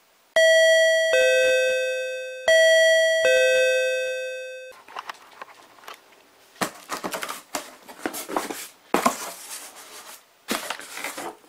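A two-note ding-dong doorbell chime, high then low, rung twice and fading away. Then comes the irregular crackle and rustle of a cardboard parcel being opened, its flaps and plastic packing rustling.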